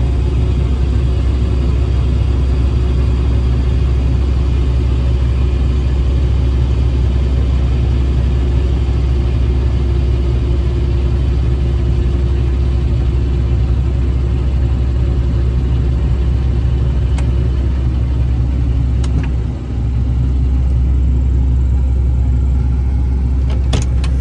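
Combine harvester running steadily, a heavy low engine rumble with a constant hum over it. The rumble dips briefly near the end, and a few sharp clicks follow.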